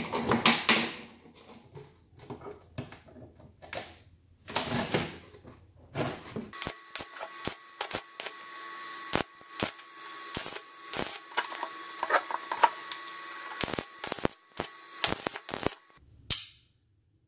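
Steel parts handled and knocked against a wooden bench. About six seconds in, a stick (arc) welder strikes an arc and runs for about ten seconds: a steady crackling hiss with a thin high whine and many sharp pops.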